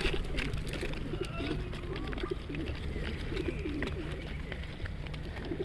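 Birds giving short, low, wavering calls over and over, one after another, over a steady low rumble.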